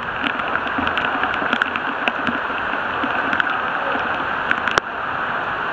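Surly Ogre bicycle's tyres running through floodwater: a steady rush of spray and churning water, with scattered small ticks and one sharp click a little before the end.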